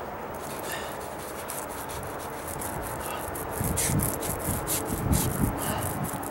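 Mini paint roller rolling exterior primer onto the wooden edge of a deck stair: repeated short, scratchy back-and-forth strokes that get louder about halfway through.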